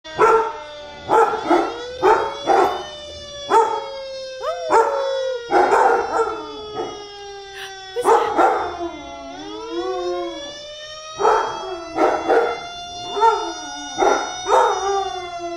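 Lab/Chow mix dog howling, with long gliding howls and many short, repeated yelping calls, along with a fire truck siren wailing.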